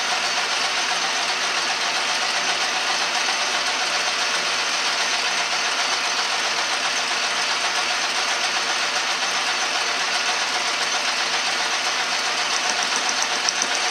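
A 10-inch Logan metal lathe running steadily at about 170 RPM, its motor and gearing giving a constant mechanical whir. Near the end, faint ticks as the high-speed tool bit touches off on the spinning weld buildup.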